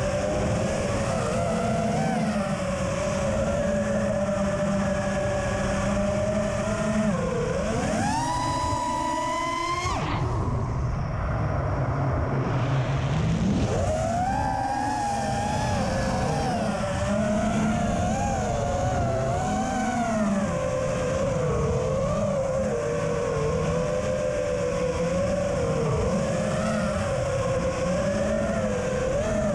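FPV quadcopter's brushless motors and 5040 propellers whining, the pitch wavering constantly with the throttle. About a quarter of the way in the pitch climbs steeply, then it drops away abruptly and comes back a few seconds later.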